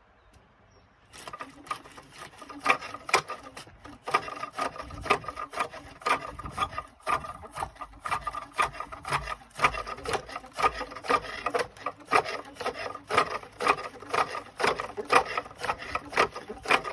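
Bungee-sprung pole lathe in operation: a hand-held cutting tool scraping and shaving the wood as the workpiece spins back and forth, in rapid rhythmic strokes. It starts about a second in. The lathe cuts only on the downstroke of the treadle.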